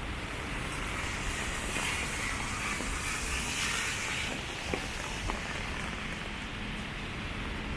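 Heavy rain falling on an umbrella and wet pavement, a steady hiss that swells and then fades between about two and four seconds in.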